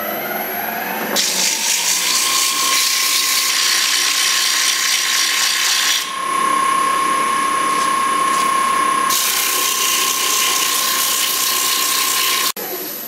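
Wood lathe motor whining as it comes up to speed, rising in pitch over the first two seconds and then holding steady. Abrasive paper hisses against the spinning wooden lamp column as it is sanded. Both cut off suddenly near the end.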